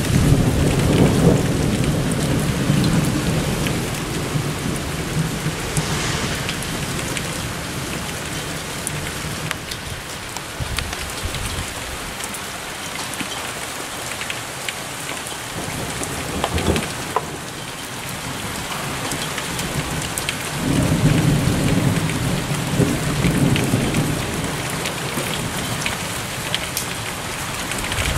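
Steady rain with thunder rumbling twice: a long roll fading over the first few seconds, and another starting about twenty seconds in that dies away over a few seconds.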